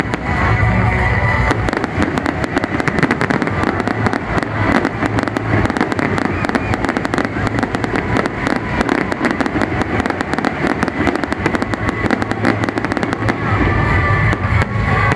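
Aerial fireworks going off in a rapid barrage of bangs and crackles, densest from about a second and a half in until near the end.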